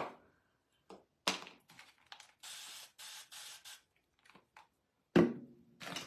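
Small craft supplies being handled on a table: scattered light clicks and knocks, two short hissing sounds in the middle, and a sharper knock near the end.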